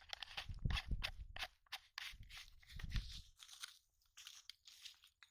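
Close, irregular rustling and crackling from handling right at the microphone, as it rubs against denim and a nylon net bag, with a few dull thumps.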